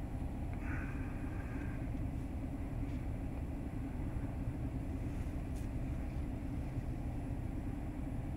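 Truck engine idling, heard from inside the parked cab as a steady low rumble. A faint short high tone sounds about half a second in.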